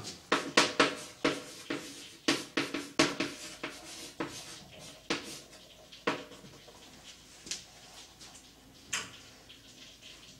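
Chalk writing on a blackboard: a quick run of sharp taps and short scratchy strokes, thinning out to a few single taps after about six seconds.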